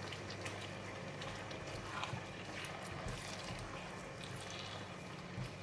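Stir-fry sauce and squid cooking in a non-stick wok, stirred with a silicone spatula: a steady sizzle with soft scrapes and a few light taps, over a low steady hum.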